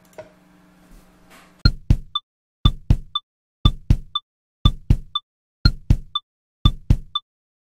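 Outro music made of drum-machine percussion: two deep knock-like hits followed by a lighter, higher tap, the pattern repeating about once a second. It starts about one and a half seconds in, after a faint click over low room hum.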